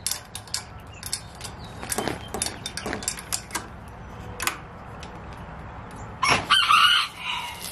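Scattered light clicks and rattles of the metal latch and hinges on a chicken coop's wire-mesh door as a hand works it. About six seconds in, a chicken gives a short, loud call, the loudest sound.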